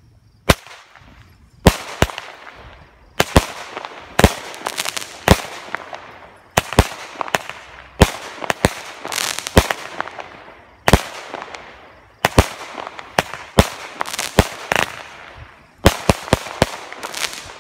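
Consumer aerial fireworks bursting in quick succession: a long run of sharp bangs, roughly two a second in clusters, each trailing off in a noisy hiss.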